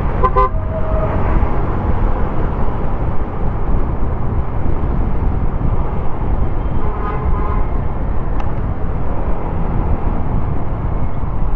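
Steady road and engine noise of a moving car, heard from inside, with a brief pitched sound about seven seconds in.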